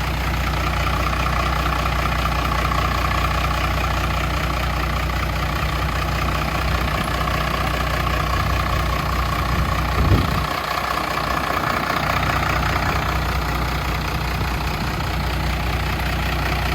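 Truck engine idling steadily after a long-sat truck was started, with a brief thump about ten seconds in.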